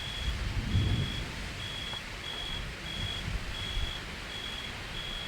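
Night wind rumbling and hissing on the microphone. A faint, high, even-pitched pulse repeats about one and a half times a second throughout.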